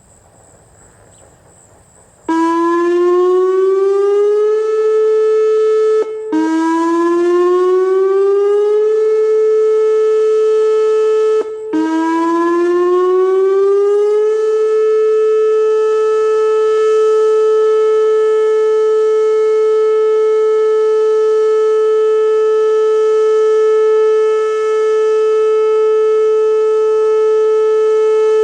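Whelen WPS-2809 electronic outdoor warning siren sounding in a scheduled test. About two seconds in it winds up in pitch and holds, cuts out briefly, and does this twice more. After the third rise it holds a loud, steady alert tone.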